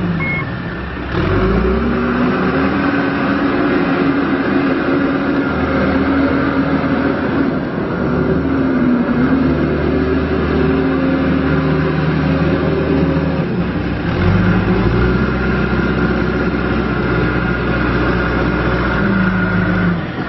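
John Deere 410G backhoe loader's diesel engine running and revving: the pitch rises about a second in, dips near the middle, then drops and climbs again about two-thirds through.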